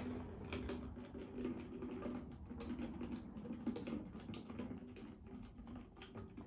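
Vinegar being poured from a small bottle into a plastic water bottle, trickling in as a faint, irregular pattering of drips and small splashes.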